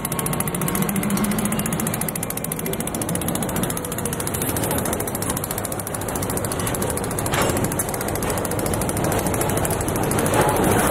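Freight train cars rolling past close by, a steady rumble of steel wheels on rail, with a sharp clack about seven seconds in and more clatter near the end.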